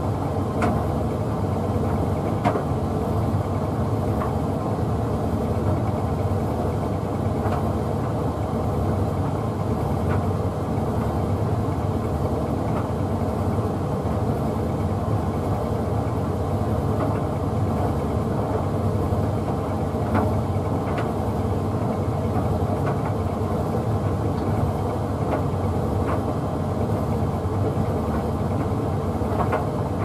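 Hoover Visiontech Infinity tumble dryer running a drying program, its motor and drum turning steadily with the laundry tumbling inside. Faint clicks sound now and then over the steady hum.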